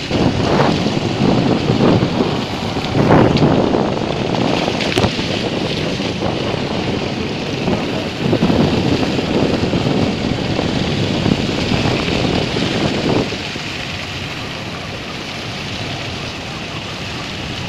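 Wind buffeting the microphone of a phone held out from a moving motorcycle, over the noise of the ride, in strong gusts that settle to a steadier rush about three-quarters of the way through.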